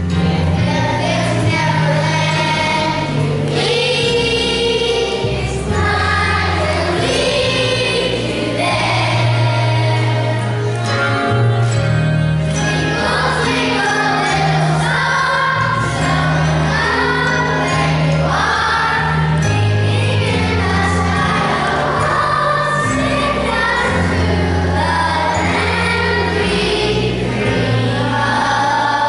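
Children's choir singing a song together, over an instrumental accompaniment of sustained low chords.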